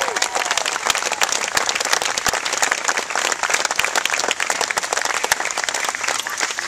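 Crowd of guests applauding: loud, dense, continuous clapping.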